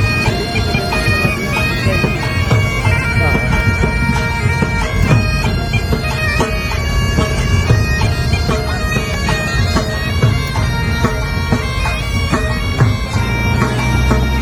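Loud reedy wind-instrument music over a steady held drone, crossed by frequent short knocks or beats.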